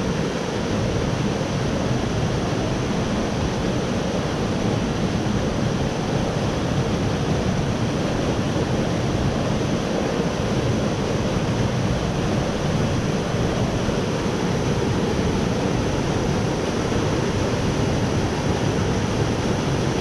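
Waterfalls pouring down a narrow rock gorge: a steady rush of falling water.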